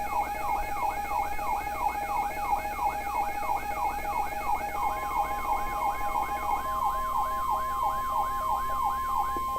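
Electronic alert siren rising in pitch over and over, about three whoops a second. About five seconds in, a steady single-pitch tone joins it: the NOAA Weather Radio warning alarm tone that comes just before a new warning message.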